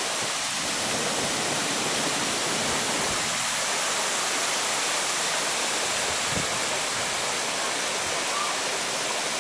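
Waterfall: a steady rush of falling and flowing water.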